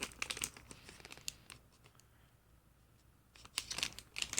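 Plastic packaging crinkling and rustling as it is handled, in short bouts with a quiet pause in the middle.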